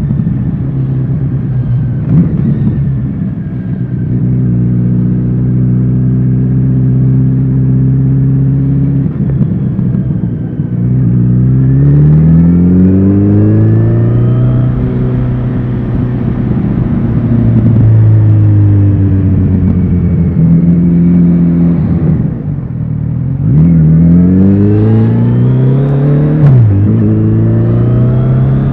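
Kawasaki Z900RS inline-four engine and exhaust under way. It cruises at steady revs, rises in pitch under acceleration about 12 seconds in, drops back as it slows around 22 seconds, then accelerates again with a brief dip, a gear change, near the end.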